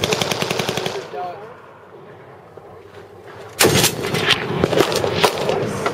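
A fast burst of automatic gunfire lasting about a second cuts off; after a lull, a heavy rifle shot goes off about three and a half seconds in, followed by several more shots from the firing line.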